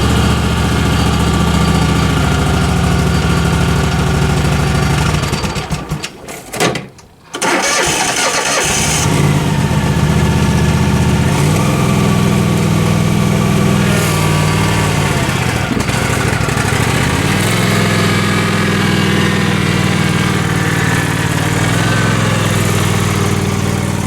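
An engine running steadily, dropping away for about two seconds a little after six seconds in, then running again.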